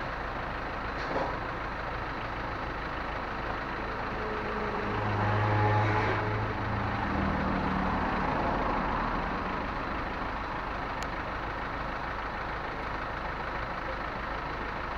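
Steady traffic noise, with a vehicle engine's low hum growing louder about a third of the way in and fading a few seconds later.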